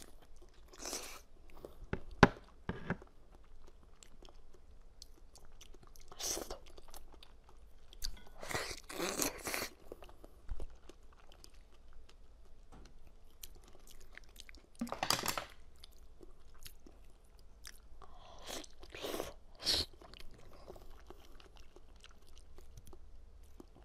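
A person chewing and biting into jelly-coated corn on the cob, close to the microphone: bursts of crunching every few seconds, with a sharp click about two seconds in.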